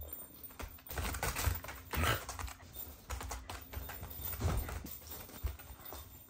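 Irregular soft taps, scuffs and clicks of a Shiba Inu's and a kitten's paws on tatami mats as they move about and play, with a couple of heavier thumps.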